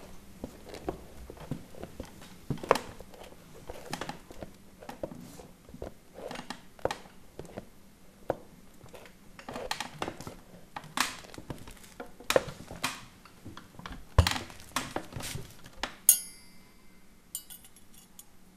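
Plates, glasses and cutlery clinking and clattering on a dinner table in a string of irregular light knocks and clicks as the meal is served. A short high ringing starts near the end.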